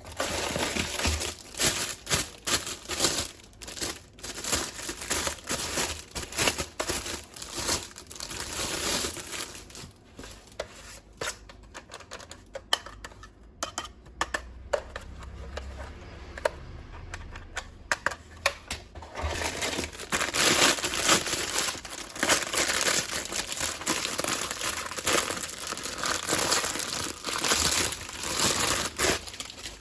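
Packaging crinkling and tearing as it is handled and unwrapped, a continuous run of irregular crackles that eases off in the middle and picks up again in the second half.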